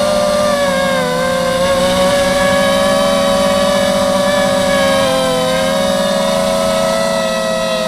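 Mini FPV quadcopter's electric motors and propellers whining steadily, the pitch wavering slightly up and down with small throttle changes.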